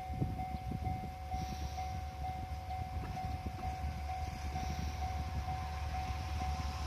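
Japanese level-crossing warning bell ringing steadily, a little over two strikes a second, with a low rumble underneath: the signal that a train is coming.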